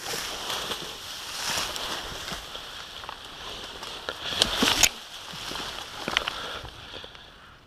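Leaves and branches rustling and scraping against clothing and gear as a person pushes through dense shrubs. This is followed by footsteps and a few sharp knocks of gear on a stony dirt track, the loudest about four and a half seconds in.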